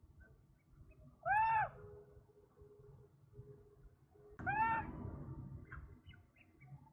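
A bird gives two short calls, each rising and falling in pitch, about three seconds apart. A few faint chirps follow near the end.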